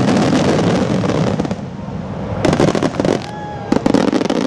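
Fireworks display: a dense barrage of aerial shells bursting and crackling, loudest at the start, then easing off before another cluster of sharp bangs about two and a half seconds in and a rapid run of cracks near the end.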